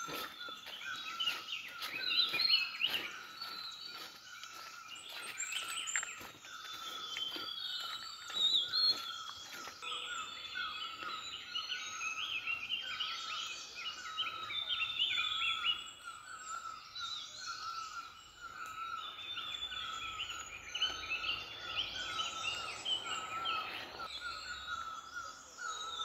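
A flock of small birds chirping and calling together: many short, overlapping high chirps, with one note repeated over and over underneath.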